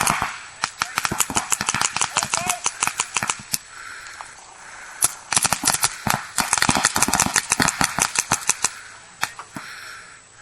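Paintball markers firing in rapid strings of sharp pops, several shots a second. There is a lull about four seconds in, then a second long volley, and only scattered shots near the end.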